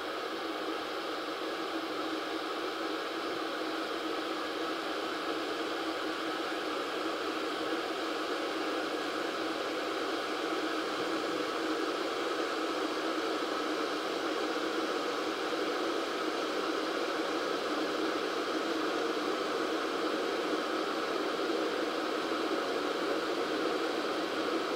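T-fal Justine+ electric kettle heating water: a steady rushing hiss that grows slowly louder as the water heats toward the boil.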